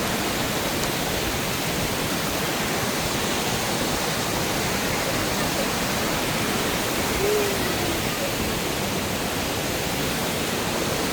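Steady, unbroken roar of falling water from a waterfall.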